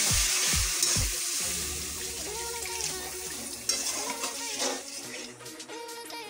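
Water poured into hot oil and spice paste in a metal kadai, sizzling loudly and fading over the first couple of seconds, then a spatula stirring the thinned masala. The oil has separated from the fried masala, and the water starts the gravy.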